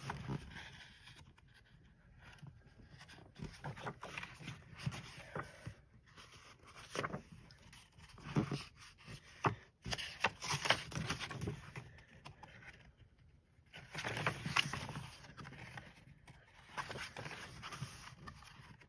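Pages of a coloring book being turned and handled: paper rustling and brushing in a series of short bursts with brief pauses between them.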